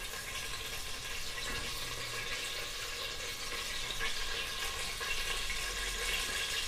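Mustard seeds and urad dal frying in hot oil in a pressure cooker base: a steady sizzle with a few small crackles, as the seeds heat toward spluttering.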